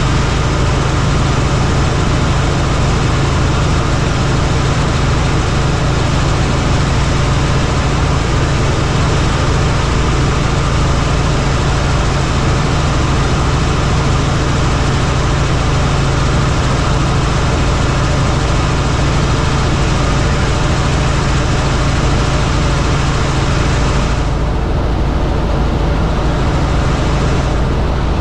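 Helicopter running: a steady, loud engine and rotor noise with a low hum beneath a broad hiss. Near the end the hiss thins out for a few seconds, then comes back.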